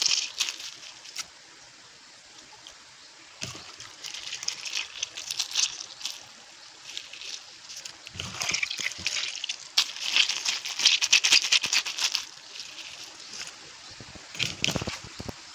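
Fresh leaves being crushed and squeezed by hand with a little water, wet crackling and squelching in bouts of a few seconds, while they are worked into a slimy herbal shampoo.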